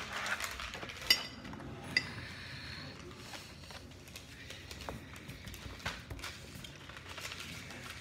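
Two sharp clinks of something hard against a dish or bowl, about a second apart, each with a brief ring, followed by faint handling noises on the counter.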